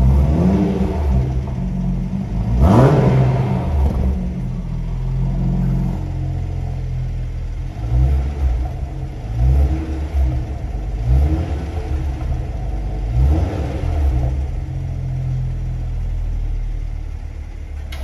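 BMW Z4 G29's 2.0-litre four-cylinder idling and being revved through an exhaust fitted with a Guerrilla Bypass cut-out valve and a mid-muffler delete. With the bypass valves open it gives one big rev about three seconds in. Later, with the valves closed, it gives several shorter blips between stretches of idle.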